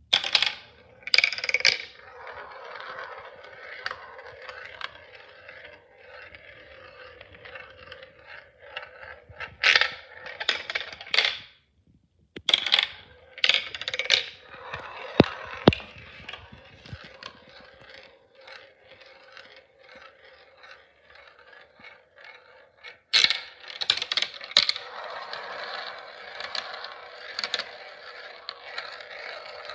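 Marbles rolling through a plastic marble run: a steady rolling whir as they circle the funnels and run along the tracks, broken several times by bursts of sharp clacks as they drop onto the plastic pieces.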